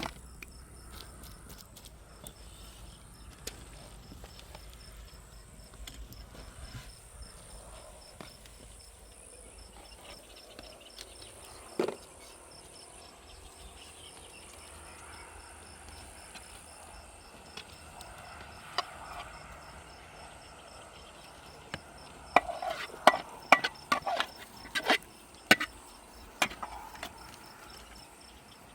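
Faint, steady, evenly pulsing high chirping, like insects, with a single sharp knock near the middle and a quick run of sharp knocks and clicks near the end.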